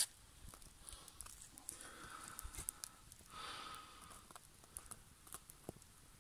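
Small wood fire crackling faintly, with scattered small pops and ticks. A brief soft hiss comes a little past three seconds in.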